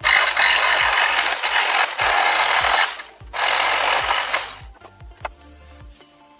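Power tool running in two bursts, the first about three seconds long and the second about a second and a half, over background music.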